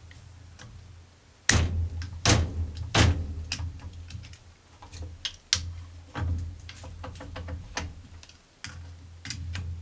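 Adjustable spanner and lathe chuck knocking and clinking as the chuck is worked loose from the lathe's spindle: a run of sharp, irregular metal knocks over a low hum.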